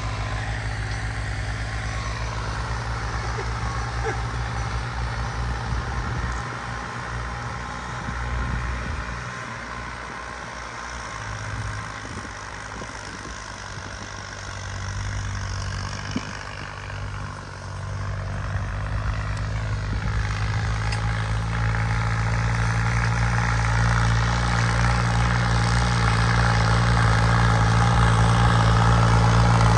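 Tractor diesel engines running hard under heavy load. They ease off somewhat through the middle, then build steadily louder toward the end.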